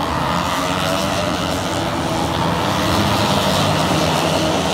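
Moto3 race bikes' engines running as the field rides past on the warm-up lap, a steady, loud mix of several single-cylinder four-stroke engines.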